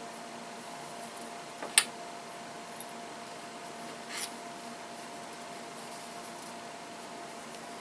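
Hands handling knit fabric and a neckband at a worktable: one sharp click about two seconds in, a small tick a second later, and a brief rustle about four seconds in, over a faint steady hum.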